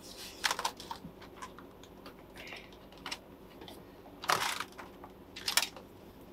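Hands working a foil-faced sound-deadening mat into place against the car's firewall: irregular light crackles and taps, with two louder clicks about four and five and a half seconds in.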